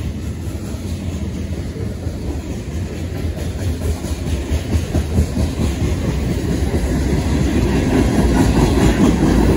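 CSX train rolling past, the rumble of its wheels on the rails growing steadily louder.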